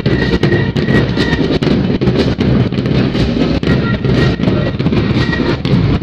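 Middle school marching band playing: drums beating steadily under flutes and other winds, with a high held note coming and going.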